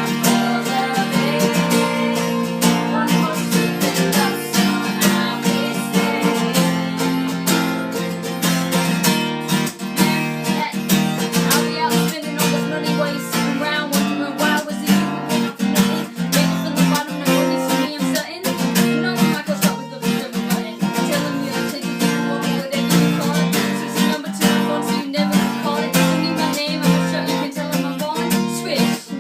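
Music led by a strummed acoustic guitar.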